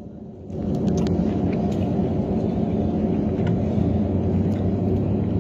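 Cabin drone of a Dash 8 Q400's Pratt & Whitney PW150A turboprops and propellers: a steady low hum with a deep tone running through it. It comes back up after a brief quieter moment at the very start.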